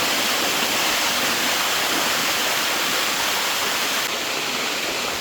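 Waterfall running: a steady, loud rush of falling water close by.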